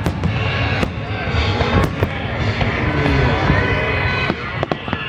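Fireworks going off: a rapid string of sharp bangs and pops over a dense crackle.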